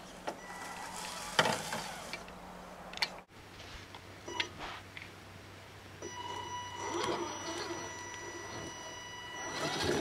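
Electric motor and geared drivetrain of an Axial SCX10 Deadbolt radio-controlled crawler whining as it crawls over rocks. There are louder crunches and rustles from the tyres on dry leaves and stone, and a few sharp clicks. The whine grows stronger about six seconds in.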